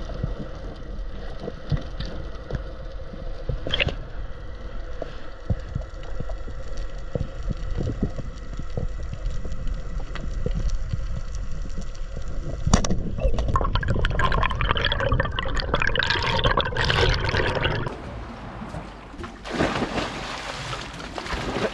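Underwater sound picked up by a camera in its housing on a spearfishing dive: a low rumble with scattered clicks, turning into louder gurgling water about 13 seconds in. Near the end, a splash as a dog leaps from a boat into the sea.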